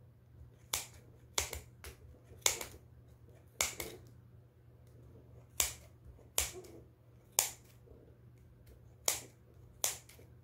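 Kitchen shears snipping through thick layers of yarn wound on a pom-pom maker: about ten sharp, crisp snips, irregularly spaced at roughly one a second.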